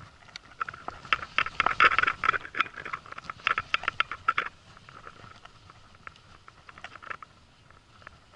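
Baitcasting reel clicking in quick, irregular runs while a hooked fish is played on the line. The clicks are dense for the first half and thin out to a few faint ones after about four and a half seconds.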